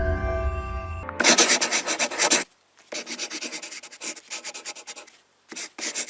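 A musical chord fades out. About a second in, three spells of rapid, dry scratching strokes begin, each a second or two long, with short gaps between them.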